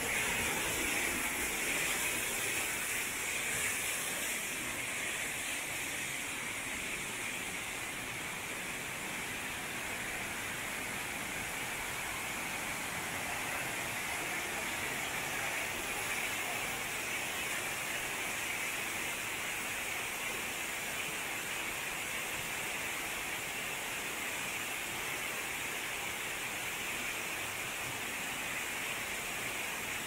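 Steady rush of a waterfall and the stream running below it, slightly louder in the first few seconds.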